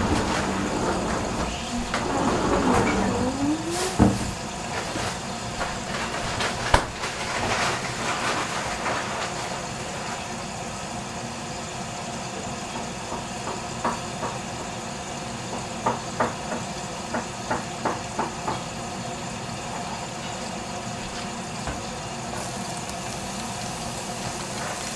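A steady mechanical hum, like a small motor running, with scattered light clicks and a sharper knock about four seconds in and again near seven.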